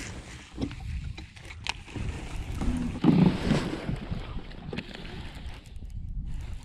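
Handling noise on a plastic fishing kayak: jacket fabric rustling and gear knocking about irregularly, with the loudest bump about three seconds in.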